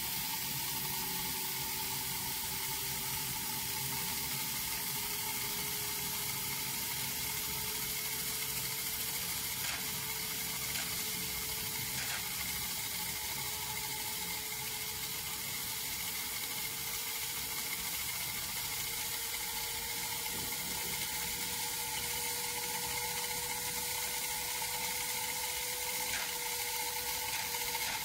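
Whizzer toy steam turbine running on its alcohol-fired tin-can boiler: a steady hiss of steam from the jet, with a whir from the small turbine wheel. A faint whine slowly rises in pitch throughout.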